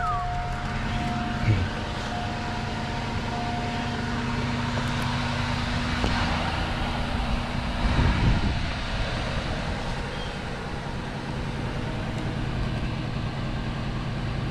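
Cadillac DeVille's 4.6 Northstar V8 idling steadily just after a cold start, with a brief bump about eight seconds in.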